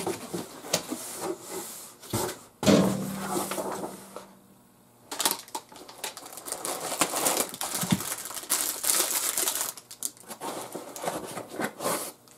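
Unboxing handling noise: foam packing inserts and cardboard flaps rubbing and shifting, foil-wrapped parts crinkling as they are lifted out, with many small knocks and rustles.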